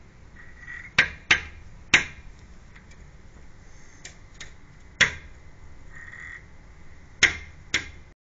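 A crow striking its reflection in a mirrored window: sharp knocks of beak and body on the glass, coming irregularly. There are three within the first two seconds, two lighter taps around four seconds, and further knocks at about five and seven seconds.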